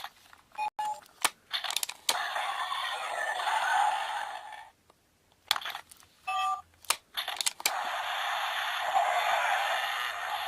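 Zyuoh Changer Final toy working: clicks as its parts are turned and pressed, short electronic beeps, and sound effects played through its small tinny speaker in two stretches, with a brief silence between them.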